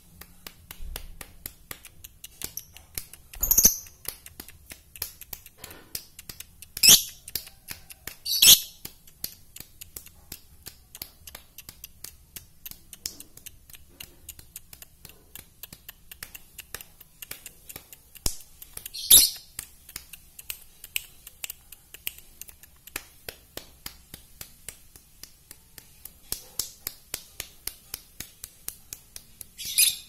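Caged masked lovebird giving five short, shrill calls, spread out with long gaps, over a steady patter of quick faint clicks.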